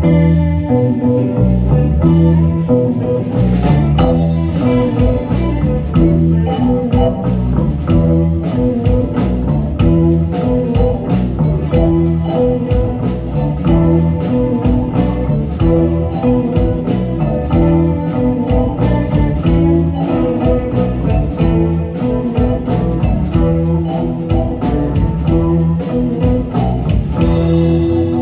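A live psychedelic rock band playing: several electric guitars over drums and keyboard, with a steady beat.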